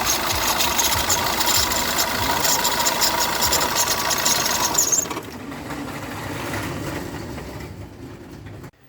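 Car engine running with a faulty water pump, making a dense knocking rattle: the pump's shaft has play, so the impeller blades rub against the inside of the engine block, a sign the pump could break at any moment. About five seconds in the noise drops sharply and then fades away.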